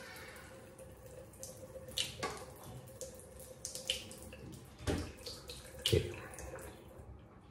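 Water running from a tap into a bathroom sink, with a few short knocks and clunks as things are handled at the basin.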